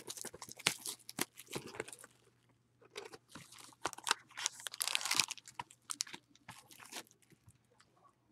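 Trading-card packaging being torn open and cards handled: scattered crinkling, tearing and crunching of wrappers and card stock in irregular short bursts.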